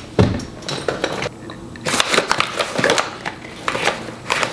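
Makeup products and containers being rummaged through: irregular clicks, knocks and rustling, with a heavier knock just after the start and busier clatter in the second half.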